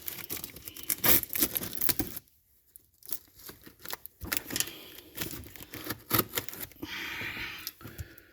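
Packing tape being ripped off a cardboard box, with crinkling and rustling of the cardboard. Two stretches of sharp tearing and crackling are split by a pause of about a second.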